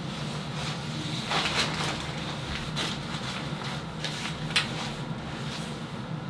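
Bike U-lock being unlocked with a key and its crossbar pulled off a plastic shower curtain: a few short metallic clicks and rattles, the sharpest about four and a half seconds in, over a steady hum.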